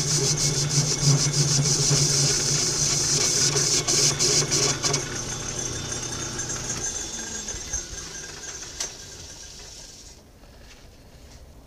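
Metal lathe running under power while a facing cut is taken across a cast iron handwheel, with a steady motor hum and a high hiss. The cut ends about five seconds in, then the motor hum fades out and the lathe coasts down to a stop.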